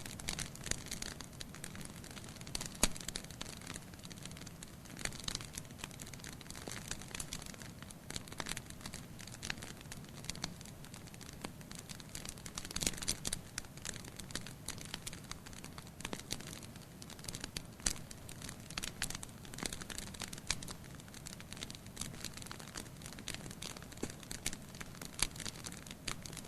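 Wood fire crackling in a fireplace: irregular snaps and pops over a low steady hiss of the burning logs, one sharper pop about three seconds in.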